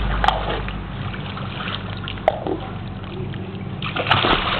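A toddler in inflatable armbands jumps off the edge into a shallow pool, making a splash of water about four seconds in.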